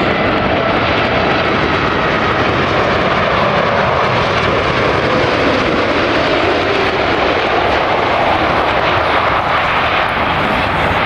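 Boeing 747's four turbofan engines passing close by: a loud, steady jet rush with faint whining tones that slowly fall in pitch.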